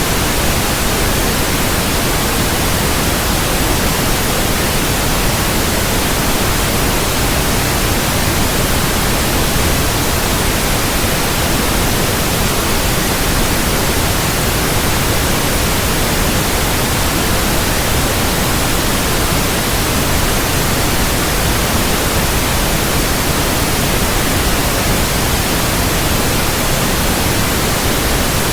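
Steady, unbroken white noise: an even hiss spread across the whole pitch range, with no change in level.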